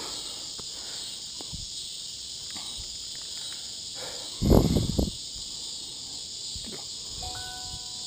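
Steady, high-pitched insect chorus buzzing without a break. About four and a half seconds in comes a loud rustling thump, and near the end a short electronic beep.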